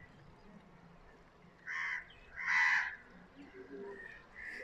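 A crow cawing twice, two short harsh calls about two seconds in, the second louder.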